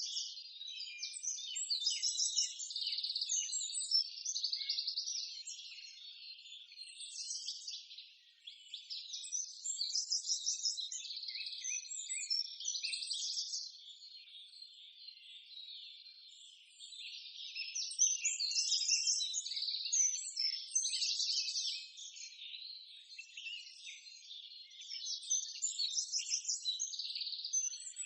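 Birds chirping and trilling, rapid high-pitched phrases repeated over and over, swelling and fading every few seconds.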